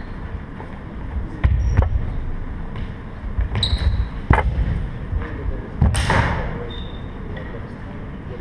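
Fencers' footwork thudding on a wooden sports-hall floor, with several sharp clashes of steel swords, some followed by a brief high ring, echoing in the large hall.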